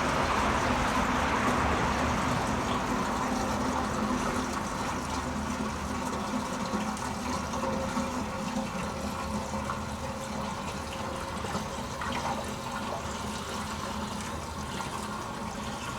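Gasoline pouring from a can into a motorcycle fuel tank in a steady rush that gets gradually quieter as the pour goes on.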